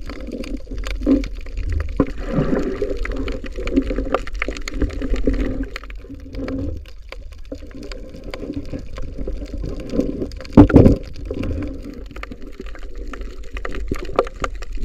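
Underwater sound picked up by a camera below the surface: a muffled, gurgling water wash with many small clicks, and one louder rush about ten and a half seconds in.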